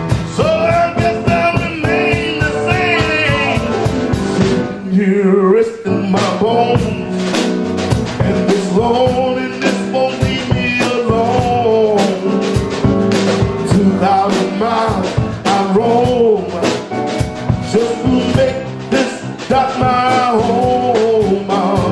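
Live blues: a man singing long, bending notes over a band with a steady drum beat.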